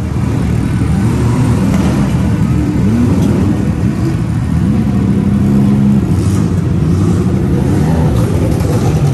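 Loud vehicle engines running, revving up and down in pitch now and then.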